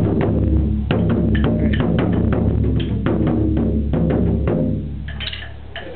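Several barrel-shaped taiko drums struck with bachi in an ensemble rhythm, a few strikes a second over a deep, ringing boom. The low boom stops about four and a half seconds in and the drumming fades away.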